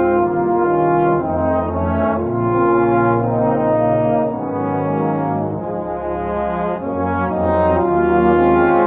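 A British-style brass band playing, full ensemble of cornets, horns, euphoniums, trombones and tubas holding sustained chords over a moving bass line.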